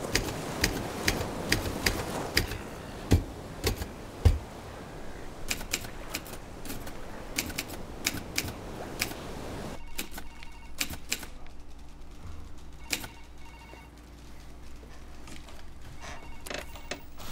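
Manual typewriter being typed on: irregular key strikes, with a few heavier clacks around three to four seconds in. The typing thins to scattered strikes after about ten seconds.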